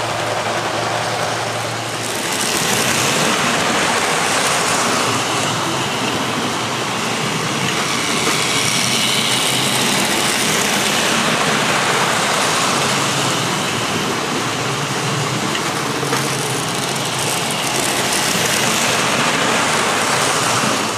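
Model trains running on the layout's track: a steady electric-motor whir and the rumble of wheels on rail, getting a little louder about two seconds in.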